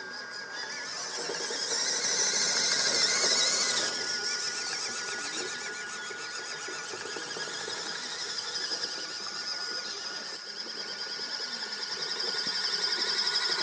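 Electric drive motor and gearbox of a WPL B36 radio-controlled 6x6 truck whining as it drives, with a thin steady high tone under a hissing high whine. It grows louder about two seconds in and again near the end as the truck comes close.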